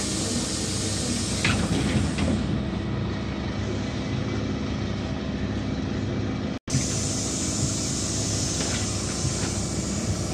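LiAZ-5292.67 city bus running on compressed natural gas, heard from inside the cabin as a steady engine hum under a broad hiss. A few faint clicks come in the first couple of seconds, and the sound cuts out for a split second about two-thirds of the way through.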